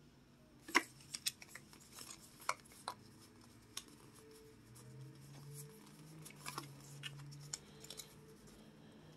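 Pokémon trading cards handled in the hand, the cards snapping and sliding against one another in scattered light clicks.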